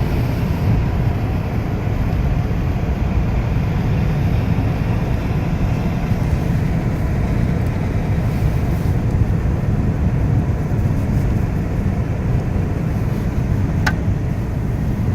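Steady low rumble of a car's road and engine noise heard from inside the moving cabin, with a single sharp click near the end.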